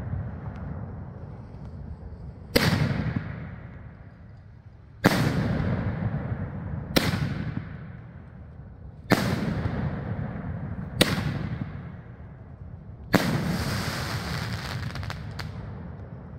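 Kush canister shell fireworks going off one after another: six sharp booms about two seconds apart, each trailing off into a long rolling echo. The last boom is followed by a couple of seconds of fine crackling.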